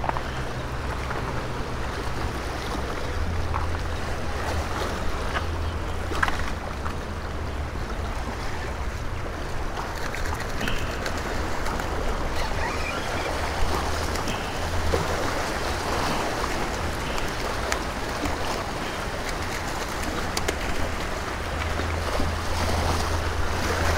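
Small waves washing and splashing against granite jetty boulders, a steady surf wash, with a constant low wind rumble on the microphone.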